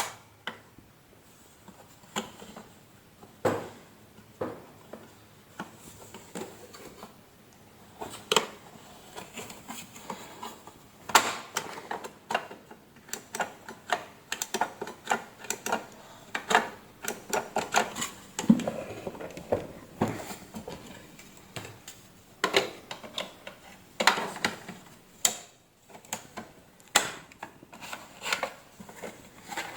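Irregular clicks, taps and knocks of hard parts being handled and fitted together during reassembly of a vacuum cleaner.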